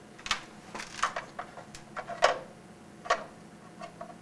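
Irregular sharp clicks and taps, about nine in four seconds, from hands working a blue plastic toy device on a wall panel; the loudest comes a little past two seconds in.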